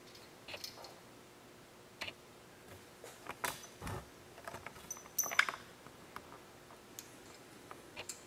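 Light metal clicks and clinks as split cone washers and flat washers are fitted by hand onto the studs of a Land Cruiser front hub flange, scattered and irregular. There is one duller knock about four seconds in, and the loudest clinks come a little after five seconds.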